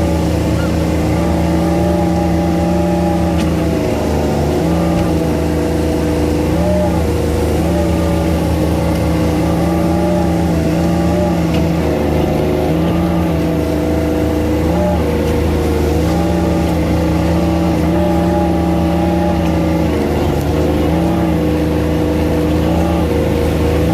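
Excavator's diesel engine running steadily under work, its note dipping briefly and recovering every few seconds.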